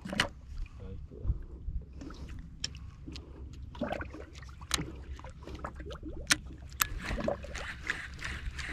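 Sounds aboard a small boat on the water: a steady low rumble with water lapping and sloshing, and scattered irregular knocks and clicks.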